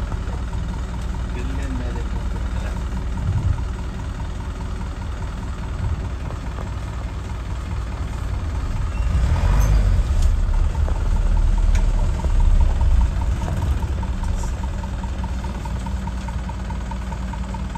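Safari vehicle's engine running with a steady low rumble, growing louder for a few seconds in the middle.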